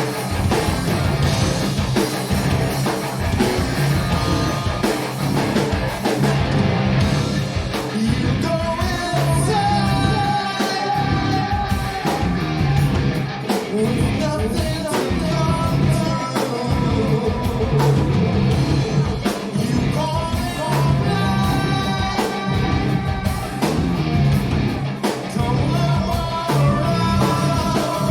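Live stoner rock band playing: heavy distorted guitars, bass and drums, with a sung vocal line coming in about eight seconds in.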